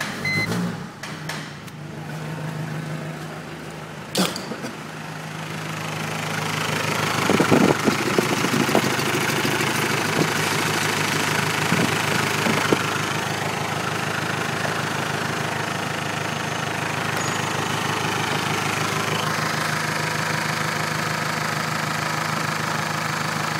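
Mercedes OM604 2.2-litre four-cylinder diesel idling steadily. It is heard first from the cabin and grows louder about six seconds in, once heard in the open engine bay. A few clicks and knocks from the oil filler cap being handled come near the middle.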